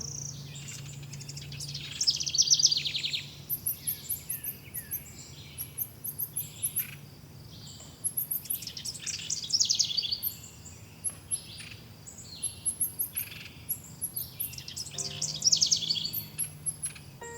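Songbirds singing: a loud, fast trilled song phrase comes about every six to seven seconds, with series of thin, very high chirps in between.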